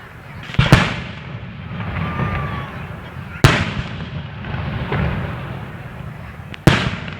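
Fireworks bursting: three sharp bangs about three seconds apart, the first a quick double, over a steady rumble of further distant bursts.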